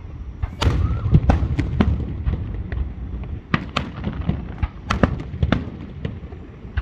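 Aerial fireworks bursting in quick succession: many sharp cracks and bangs over a continuous low rumble.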